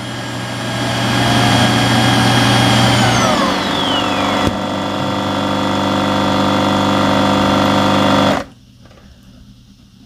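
Shark AI Ultra XL self-empty base's suction motor running pretty loud as it pulls debris out of the docked robot's dust bin. It makes a steady whine with several tones, one of which slides down in pitch about three seconds in. The motor cuts off suddenly about eight and a half seconds in as the emptying cycle ends.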